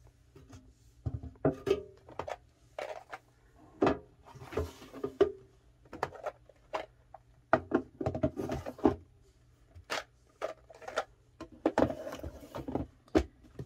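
Clear plastic drawer organizers filled with washi tape rolls being handled and moved on a table: irregular plastic clicks, taps and knocks, with a brief rustle a few seconds in.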